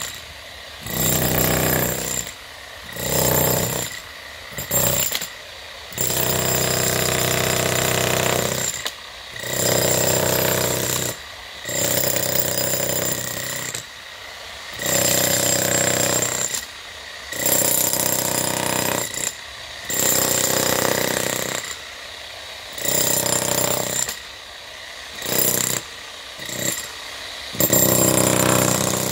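Bosch GSH 11E electric demolition hammer chiselling into a concrete driveway slab. It runs in repeated bursts of one to several seconds with short pauses between; the longest run is near the middle.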